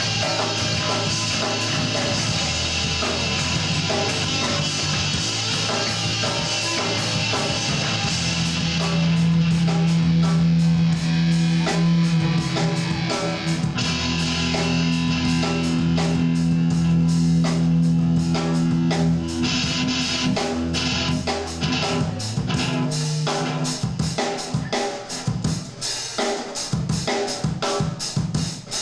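Live rock band playing: electric guitars and bass hold long chords over a drum kit. Near the end the held notes stop and the drums carry on alone.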